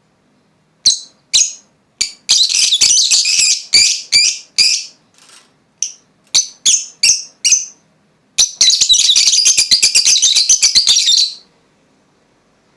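Lovebirds chirping: a string of short, shrill chirps with brief gaps, then a fast, unbroken run of twittering chatter lasting about three seconds, which stops near the end.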